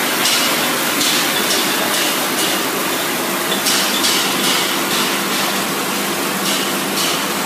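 Dog food production line machinery running: a steady mechanical hum and hiss, with short bursts of brighter hiss coming and going every second or so.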